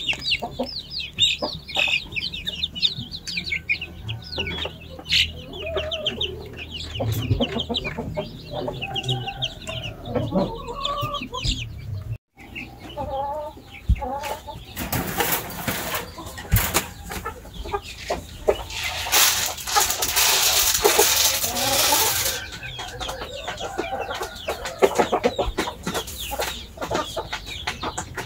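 Chickens clucking and chicks peeping in quick, overlapping calls, with a stretch of loud rustling noise lasting several seconds past the middle.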